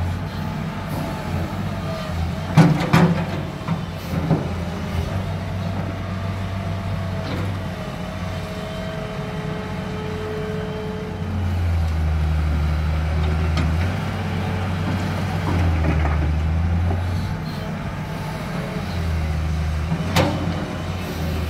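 Cat 325BL excavator's diesel engine working steadily, swelling in level in several surges as the hydraulics take load to dig and swing. A few sharp knocks stand out, the loudest about three seconds in.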